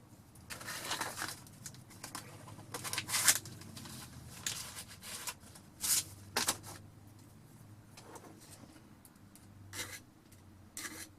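Short, irregular rasping strokes of a file on a vintage drill bit, working off a burr on its edge; about eight strokes, some longer and some brief.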